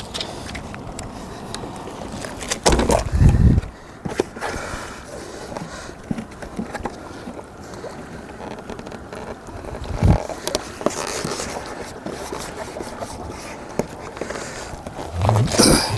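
Light clicks and knocks of a plastic RC bait boat's hull and hatch being handled, over lake water lapping at a stony shore. Wind rumbles on the microphone in gusts, loudest about three seconds in and again near the end.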